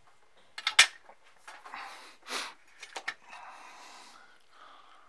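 Small clicks and rustles of hand work on the headphone's jack board. The loudest is a sharp click about a second in, with a few smaller clicks and short hissing noises around it.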